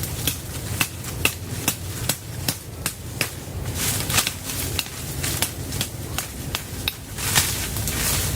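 Repeated sharp knocks, about two or three a second at an uneven pace, over a steady low rumble.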